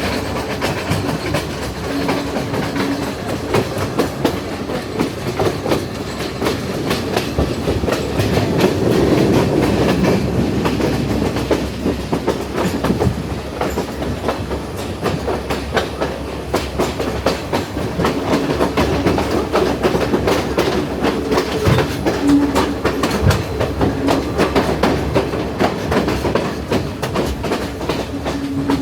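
Passenger train running along the line, heard from a carriage window: a steady rumble with the wheels clattering over the rail joints.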